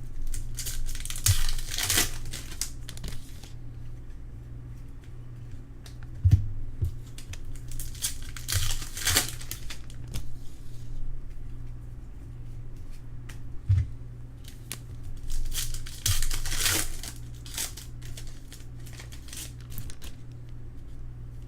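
Crinkling and tearing of trading-card pack wrappers and cards being handled, in three main bursts with a few light knocks, over a steady low hum.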